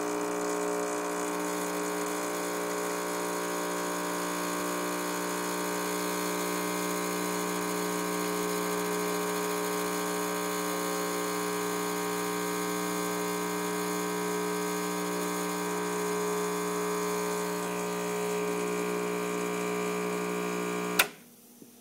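Rancilio Silvia espresso machine's vibratory pump humming steadily while pulling an espresso shot. Near the end it stops abruptly with a sharp click as the brew is shut off.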